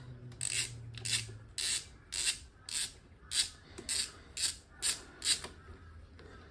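A ratchet wrench worked back and forth in about ten quick strokes, about two a second, with a rasping ratchet buzz on each return stroke, until it stops about five seconds in. It is typical of undoing a bolt on the motorcycle engine.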